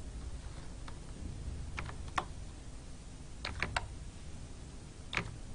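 Sparse computer keyboard keystrokes as a short word is typed: a few single clicks, then a quick run of three or four near the middle, and one more near the end.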